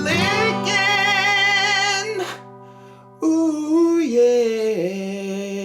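Short sung outro jingle: a voice holds one long wavering note over sustained accompaniment, breaks off for about a second, then sings a second phrase that steps down in pitch.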